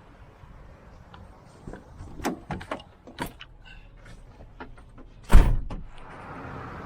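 A few scattered clicks and knocks, then one loud slam with a deep thud about five seconds in: a vehicle door being shut.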